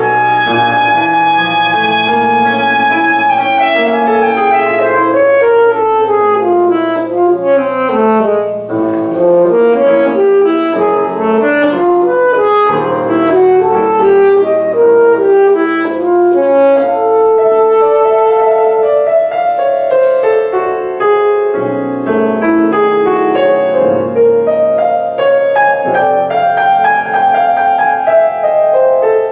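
Saxophone and grand piano playing a classical duet: the saxophone carries a melody of moving and long held notes over the piano accompaniment.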